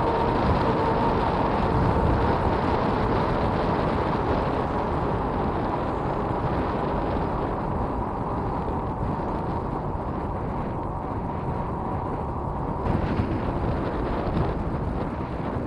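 Wind buffeting the microphone and tyre noise from a Magicycle Deer e-bike riding along asphalt, with a faint steady whine underneath.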